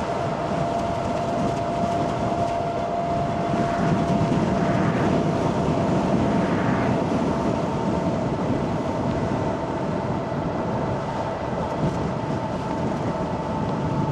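Electric mountain bike riding along: steady wind and tyre noise with a thin, steady whine over it.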